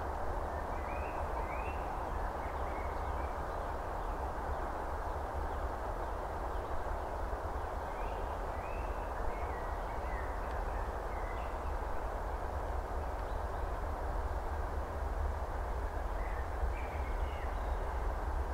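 2M62U twin-section freight diesel locomotive, with two-stroke V12 diesel engines, running in the distance as it approaches with its train: a low, steady rumble that grows slightly louder near the end. Birds chirp briefly over it a few times.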